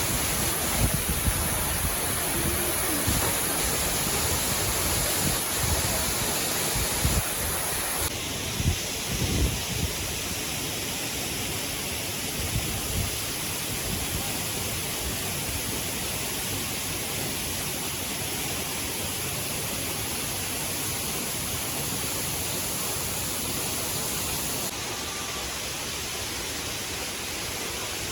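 Falling water of Cikaso Waterfall rushing steadily, with irregular low thuds during the first ten seconds or so.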